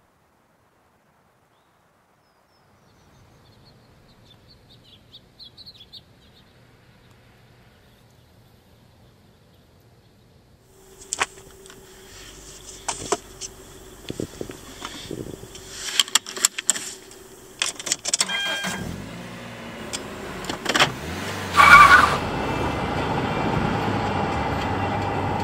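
Near silence with a few faint chirps, then knocks and clicks of things being handled inside a car. After a short loud tone, the steady road and engine noise of a car driving at highway speed runs to the end, heard from inside the cabin.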